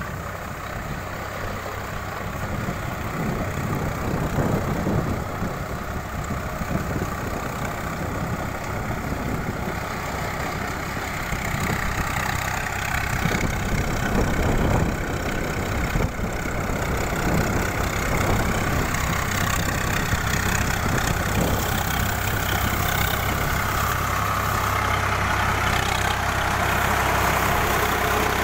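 Swaraj 744 FE tractor's three-cylinder diesel engine running under load as it drives its rotavator through flooded paddy mud. The steady engine note grows louder through the second half.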